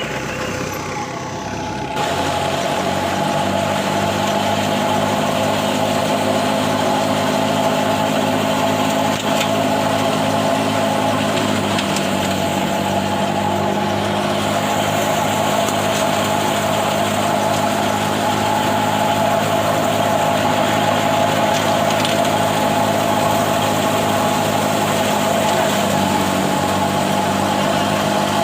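A large engine running steadily at a constant speed, with a sudden change in its sound about two seconds in and slight shifts in pitch later on.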